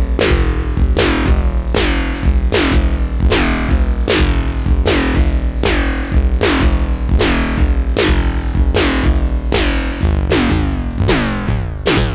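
Eurorack modular synth drum loop, squashed by a patched envelope-follower compressor, with a Doepfer A-188-1 BBD (bucket-brigade delay) copy blended in whose short delay is modulated by the inverted envelope signal. About two hits a second, each followed by a falling swoop from the BBD modulation.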